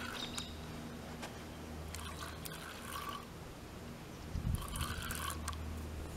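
Fishing reel clicking and whirring in short bursts of about a second, twice, as a hooked carp is played, over a low steady hum. There is a low thump just before the second burst.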